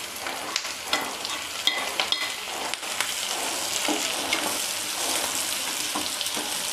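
Chopped tomatoes hitting a hot pan of lightly fried onions in butter and oil, with knocks and scrapes of a wooden spatula at first. A steady sizzle then builds as they are stirred.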